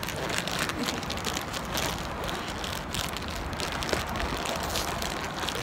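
Outdoor street noise of passing road traffic: a steady rush broken by many small crackles.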